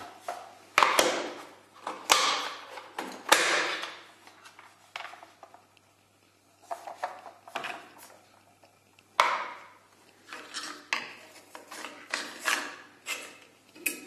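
Handling noise of a Dirt Devil DD7014 Popster vacuum cleaner's plastic floor nozzle and attachments on a tile floor: irregular knocks, clatters and scrapes, four louder ones with smaller clicks between.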